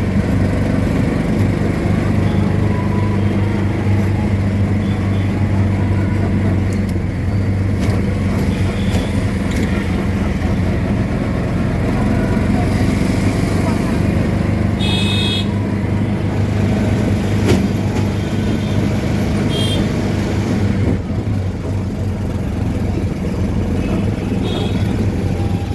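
Steady hum of a vehicle engine riding along a busy street, with traffic noise and a few short, high horn beeps after the middle.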